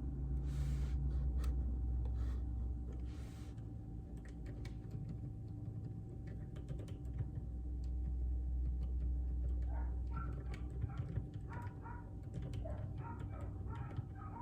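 Typing on a JJK84 mechanical keyboard with Outemu Silent Peach linear switches: a steady run of keystroke clicks over a low hum. From about two-thirds of the way in, animal calls join the typing.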